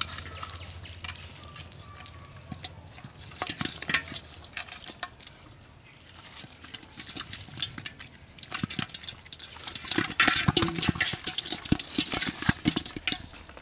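Live fish being picked out of a wet cast net and dropped into a metal pot: irregular wet slaps, rustles and clicks, busiest in the second half.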